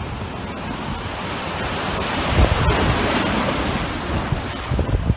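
Wind buffeting the microphone over rushing water, a loud steady noise that swells around the middle, with gusty low rumbles.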